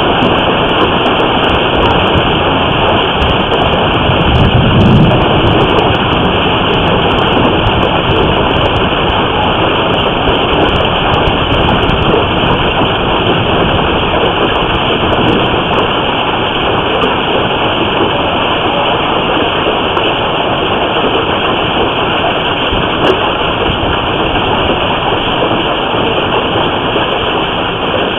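Hailstorm heard through a surveillance camera's microphone: a loud, dense, steady pelting of hail and heavy rain, with a low rumble about five seconds in.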